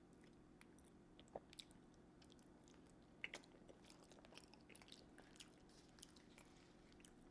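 Near silence with faint chewing: a person eating, with a few soft wet mouth clicks, the clearest about a second and a half in and just after three seconds.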